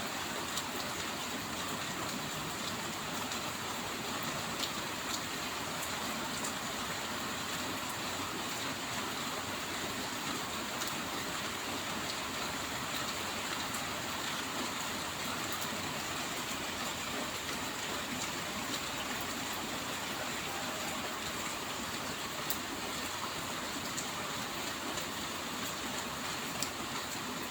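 Steady rain falling, an even hiss with scattered sharp drop ticks throughout.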